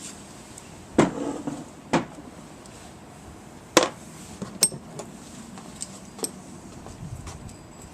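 Hand tools and parts being handled: a handful of sharp knocks and clicks, the loudest about a second in and just before four seconds in, with a short rattle after the first.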